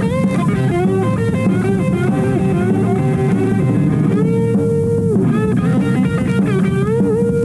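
Rock music with a lead guitar playing held, bent notes over a bass and drum backing.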